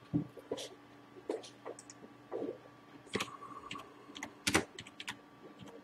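Typing on a computer keyboard: about a dozen irregular key clicks, the loudest a little after four and a half seconds.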